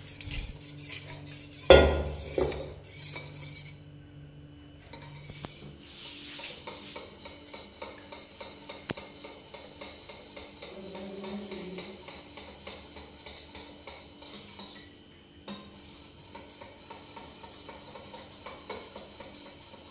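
Steel spoon stirring and clinking against a steel bowl, with one loud clank of steel utensils about two seconds in, then a long run of light, regular clinks.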